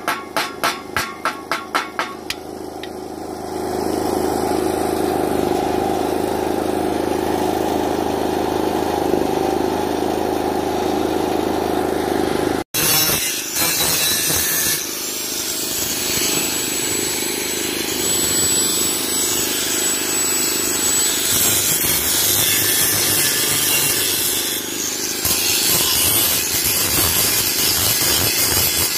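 A hammer chipping slag off a fresh weld on steel pipe, about five quick taps a second for the first two seconds. After a steady lower machine drone and a sudden break about halfway through, an angle grinder cuts through a steel pipe: a loud, harsh grinding with a thin high whine.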